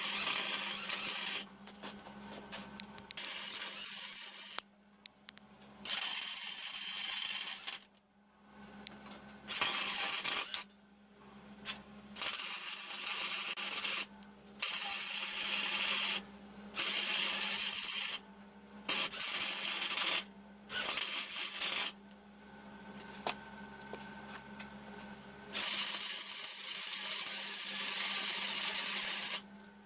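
Welding arc crackling and sizzling in about ten short bursts of one to three seconds each, with pauses between, as when laying tack welds or short beads; a steady low hum runs underneath.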